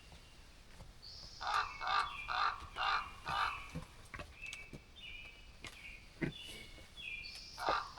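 Birds calling: a quick run of harsh, caw-like calls in the middle, with short higher chirps and whistled notes between them and a few more calls near the end.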